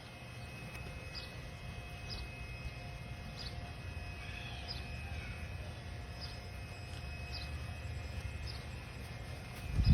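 Outdoor ambience: a bird repeating a short high chirp about once a second over a steady low rumble, with a single loud thump at the very end.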